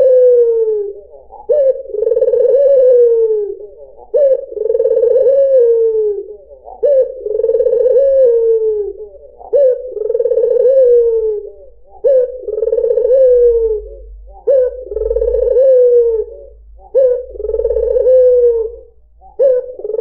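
White puter, a domestic Barbary (ringneck) dove, cooing over and over. About every two and a half seconds it gives a short note followed by a long rolling coo that falls in pitch, about eight calls in all.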